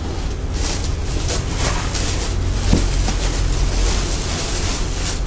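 Cloth and plastic bags being handled and rustled close to the microphone in irregular brushes, over a steady low rumble.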